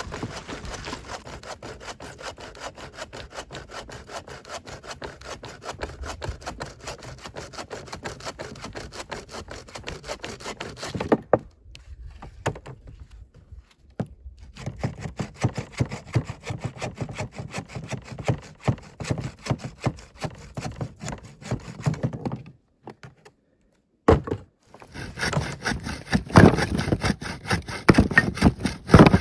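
Hand saw cutting through wood in steady back-and-forth strokes, stopping twice briefly.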